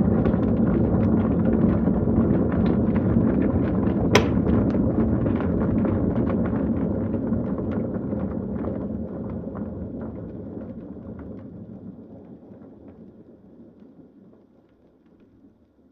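Electric kettle at a rolling boil, water bubbling and rumbling, then a single sharp click about four seconds in as it switches off automatically. The bubbling then dies away gradually over about ten seconds to a faint simmer.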